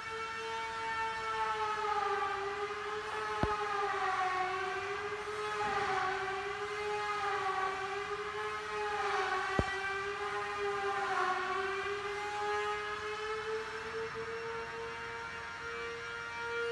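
A long unbroken siren-like tone that wavers slowly up and down in pitch, with two sharp clicks, one a few seconds in and one past the middle.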